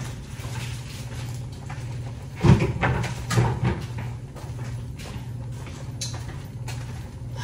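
Kitchen clatter: a few loud knocks of things being handled, about two and a half to four seconds in, over a steady low hum.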